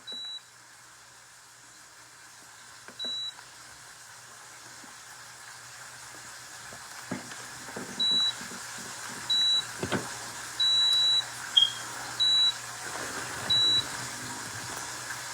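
Seven short, high-pitched electronic beeps, irregularly spaced, with a longer one a little past the middle; while each beep sounds, the rest of the audio cuts out. Under them is a steady hiss that slowly grows louder.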